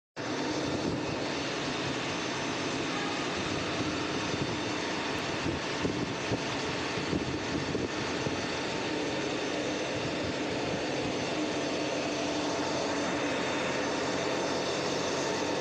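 Copper-wire winding machines with many spindles running together: a steady mechanical hum and whir with several constant tones in it, unchanging throughout.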